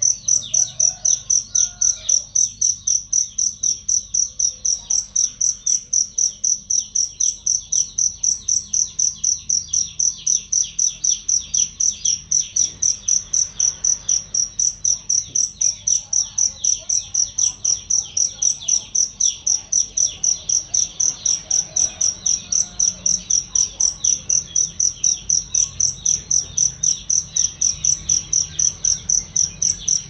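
Field cricket chirping loud and clear in a steady, even rhythm of about three high-pitched chirps a second, with a fainter, faster ticking beneath it.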